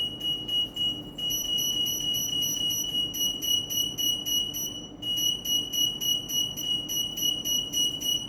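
AM EAS anti-theft antenna's alarm going off: a high-pitched electronic beep pulsing several times a second, with short breaks about a second in and near five seconds. It signals that the antenna has detected a security tag.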